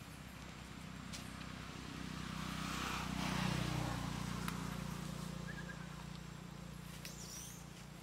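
A motor vehicle passing by: a low engine hum and tyre hiss that grow louder, are loudest about halfway through, and then fade away.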